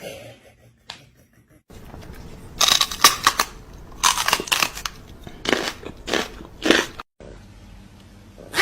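Crunching in four short bouts, each under a second long, spread over about four seconds.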